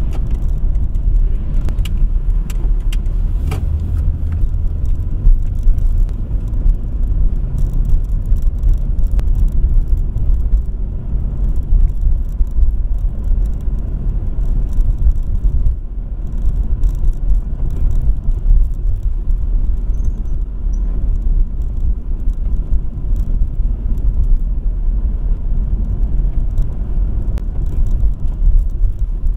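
Car driving, with a steady low rumble of engine and road noise heard from inside the cabin. A few light clicks come about two to four seconds in.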